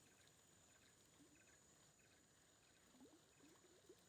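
Near silence: faint background hiss with a few faint short rising chirps, a cluster of them near the end.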